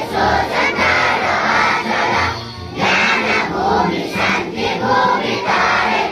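A large group of schoolchildren singing together in unison, with a short break for breath about two and a half seconds in.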